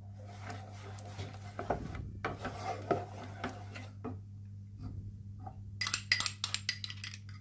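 A wooden spatula scrapes and stirs thick almond-paste halwa around a metal pan. Near the end comes a quick run of sharp knocks from the spatula against the pan.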